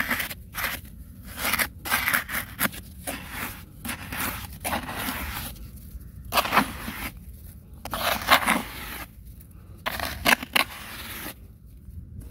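Bare hands scraping and scooping loose sandy soil, in irregular gritty bursts with short pauses between strokes.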